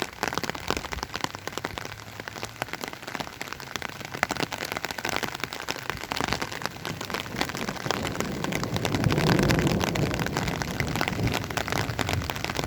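Steady rain falling and pattering on surfaces, with a low rumble of thunder swelling up about nine seconds in.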